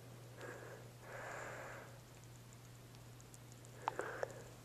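A gerbil nibbling a pea: a couple of breathy sniffs early on, then a few sharp clicks of chewing about four seconds in, over a low steady hum.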